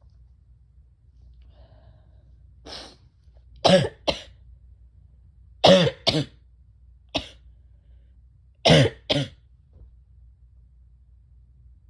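Coughing from a person with bronchitis: a soft cough, then loud coughs mostly in pairs, about eight in all, a second or two apart.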